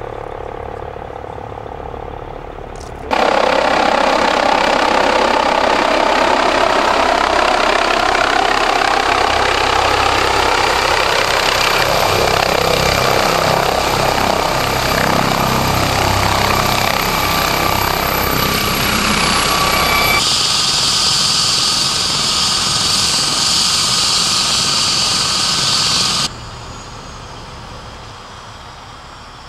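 MD 902 Explorer medical helicopter approaching and landing: turbine whine and rotor noise. It is fainter for the first three seconds, then jumps suddenly to loud, with a high whine that slides slightly down near twenty seconds. After about twenty-six seconds it drops to a lower, steady running sound while the helicopter sits on the ground with its rotors turning.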